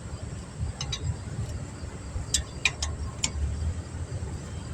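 A handful of short, sharp metal clicks and clinks from a breaker bar and socket being worked, spaced irregularly, over a steady low rumble of wind or passing traffic.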